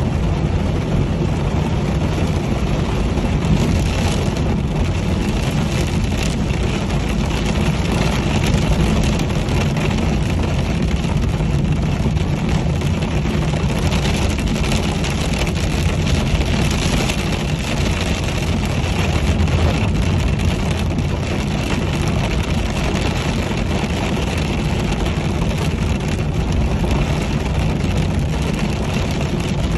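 Steady car cabin noise while driving in the rain: engine and tyre rumble on a wet road, with rain hitting the windscreen.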